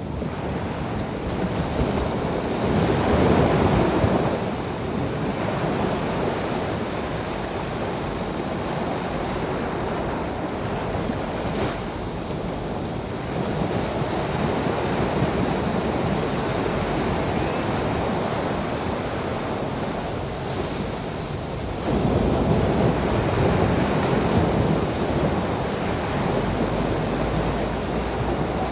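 Sea waves surging and breaking on a shore: a continuous wash of surf that swells loudest about three seconds in, then rises suddenly again about two-thirds of the way through and stays louder for a few seconds.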